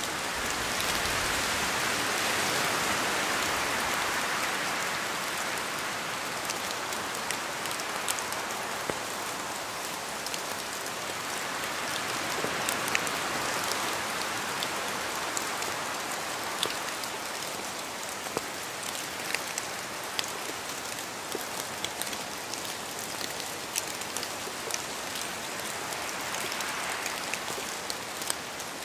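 Steady rain falling, with a constant hiss and many individual drops ticking sharply on a surface; the downpour swells slightly in the first few seconds and then eases back.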